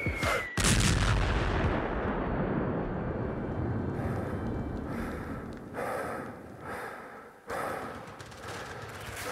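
Battle sound effects in a dance routine's soundtrack: a falling whistle ends in a big explosion about half a second in that dies away slowly, then several shorter blasts like artillery or gunfire follow.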